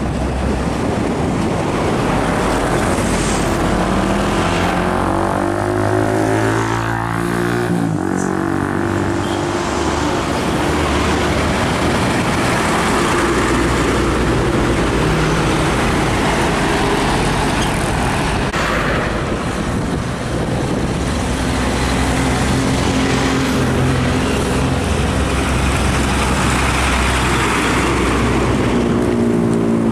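Heavy diesel trucks pulling past close by, their engines running loud under load. The pitch climbs as they accelerate and drops sharply about eight seconds in, as at a gear change, then climbs again near the end.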